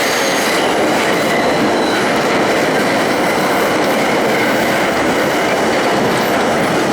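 Budd-built R32 subway train running at speed, a steady loud rumble of steel wheels on rail.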